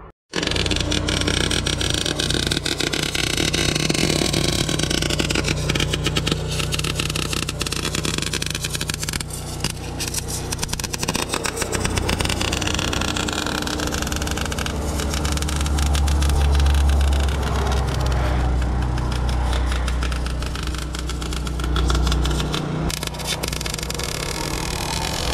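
Arc welding on the steel excavator thumb: the arc crackles and spits continuously, over the steady low drone of an engine running, which swells partway through and eases off again near the end.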